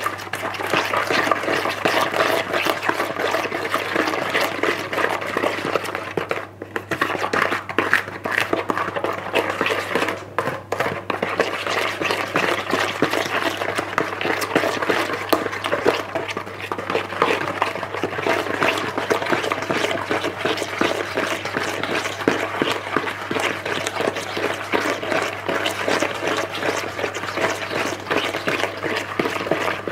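Electric hand mixer running steadily, its beaters churning a wet batter of creamed butter, sugar, egg and milk in a bowl, with two brief dips in level.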